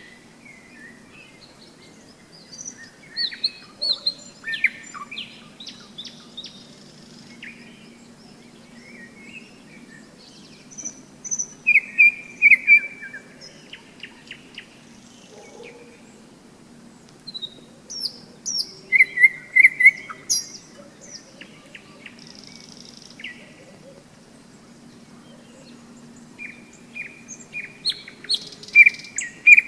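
Nightingale singing: short phrases of varied whistles, trills and fast repeated notes, coming in loud bursts a few seconds apart and ending in a rapid rattle of repeated notes.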